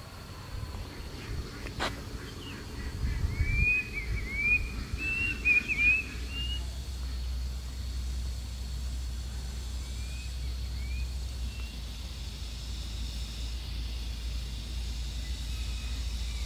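A bird chirping a quick run of short rising calls about three to six seconds in, and a few fainter ones near ten seconds, over a steady low rumble and a faint steady high tone.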